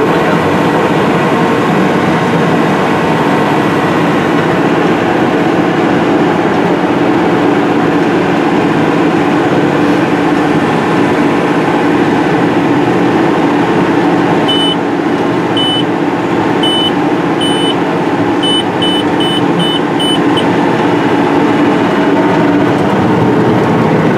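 Case IH Steiger 620 Quadtrac's diesel engine running steadily under heavy load, heard inside the cab while it pulls a nine-shank ripper through hard, dry ground. About halfway through, a cab alarm gives a run of short high beeps: four about a second apart, then five quicker ones.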